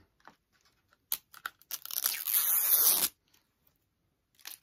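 Plastic packaging of a Bratz Minis blind capsule being torn open by hand: a few light clicks and rustles, then about a second and a half of loud tearing and crinkling, which stops abruptly.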